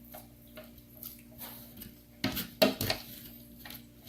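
A spoon and kit cups or mixing bowls clinking and knocking while colorant is stirred into water, with a louder burst of clatter about two seconds in.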